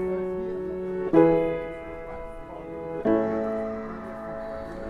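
Background music: slow piano chords, one struck about a second in and another about three seconds in, each ringing and fading.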